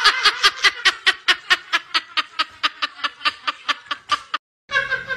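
A person laughing in a fast, even ha-ha-ha, about six beats a second, that cuts off abruptly a little over four seconds in.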